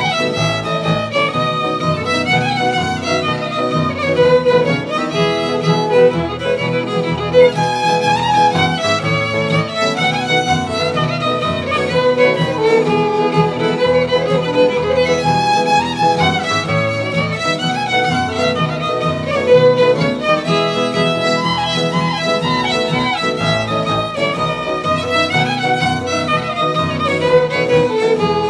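Fiddle music: a fiddle tune played continuously, with a steady low accompaniment underneath.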